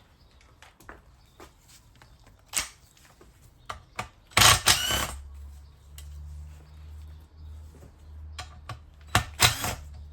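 Hand tools clicking and knocking against the metal of a turbocharger being stripped down, with a louder burst of metallic clatter about four and a half seconds in and another near the end.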